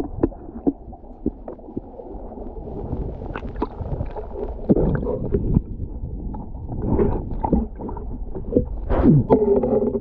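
Underwater sound through a submerged action camera in a river: a constant muffled rumble of moving water, with gurgling bubbles and scattered sharp clicks and knocks that grow louder and busier near the end.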